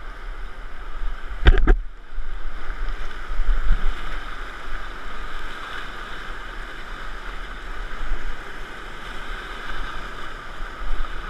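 Whitewater rapid rushing steadily around a kayak running through it, with one sharp knock about one and a half seconds in.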